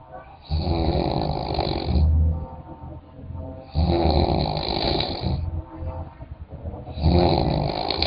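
Snoring: three long snores, each lasting about one and a half seconds and coming roughly every three seconds, with quieter stretches between them.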